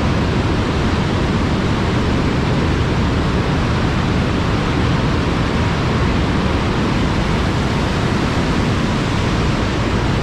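Box Canyon Falls, the 85-foot cascade of Canyon Creek in a narrow quartzite canyon, rushing as a loud, steady, unbroken wash of falling water.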